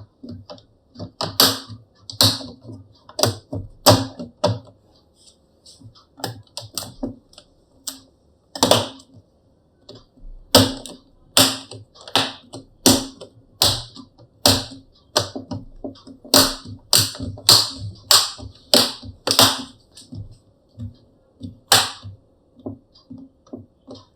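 Plastic laptop screen bezel being pressed onto the display lid, its clips snapping into place one after another: a long series of sharp, irregular clicks, thinning out in the middle and ending with a single click near the end.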